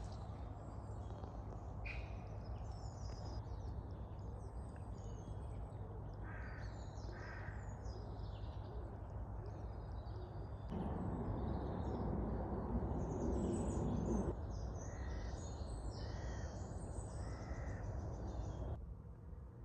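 Crows cawing in two short runs of a few calls each, over a steady low rushing background. A louder rushing noise swells for about three and a half seconds midway.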